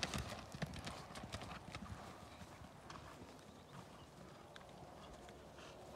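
Hoofbeats of a ridden grey Arabian horse moving off over grass. They are clear and quick for about two seconds, then fade and thin out as the horse goes away.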